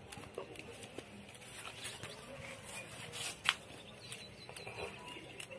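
Plastic weaving wire clicking and rustling in the hands as loose ends are tucked through the knots of a woven wire basket, with scattered light ticks and one sharper click about three and a half seconds in.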